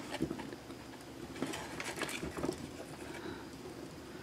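Faint handling of a plastic action figure: a few soft taps, clicks and rustles as it is set upright on a desk and adjusted to make it stand.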